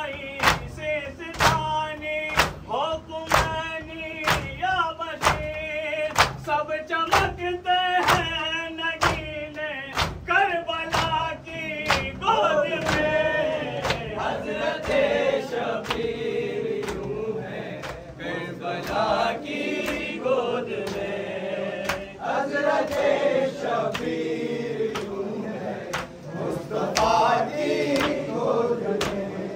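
A group of mourners chanting a noha together while beating their chests in time (matam), a sharp slap about twice a second under the singing.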